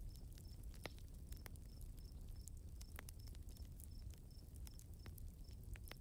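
Night nature ambience of crickets chirping in a quick, regular rhythm, about three chirps a second, with scattered sharp ticks and a faint steady low rumble underneath.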